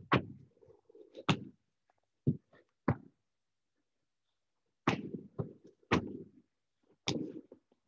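Thuds and scuffs of a person doing burpees on a gym floor mat: hands and feet hitting the floor as he drops down and pushes back up. Several sharp thumps come in clusters, with a quiet gap of nearly two seconds around the middle.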